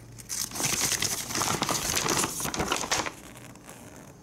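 Paper rustling and crinkling as a folded instruction leaflet is opened out by hand, starting about half a second in and dying down about three seconds in.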